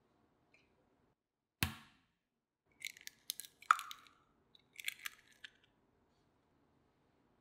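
A raw egg cracked with one sharp knock, then the shell crackling and clicking in quick bursts as it is broken open over a ceramic egg separator, with one brief ring partway through.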